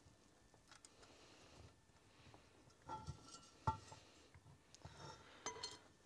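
Scattered metallic clinks and knocks, a few with a short ring, from the steel parts of a homemade jack-powered battery-lug crimper being handled; the loudest comes a little past halfway.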